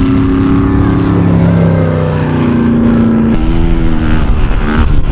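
Off-road vehicle engine running at high revs. Its pitch holds steady, then steps down and back up, shifting again about three seconds in.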